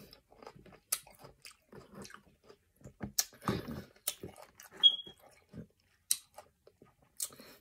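Close-up chewing and biting of juicy fruit, with several sharp clicks of a metal fork against plastic containers. There is a brief high squeak just before five seconds in.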